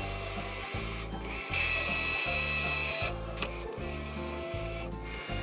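Hand-held immersion blender running with its blade head down in a pot, pureeing chunky tomato and vegetable soup; the motor's whine grows stronger for a while in the middle.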